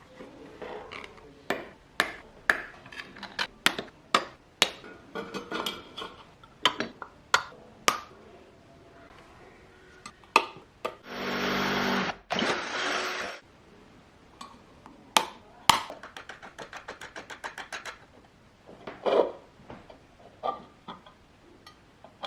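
Workshop work on small metal parts: a string of separate sharp taps and clicks, a power tool running for about two seconds near the middle, and a quick run of ticks a few seconds after it.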